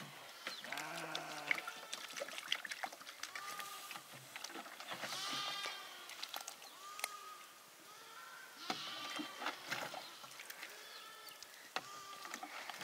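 A flock of sheep bleating, many overlapping calls one after another, with scattered sharp clicks.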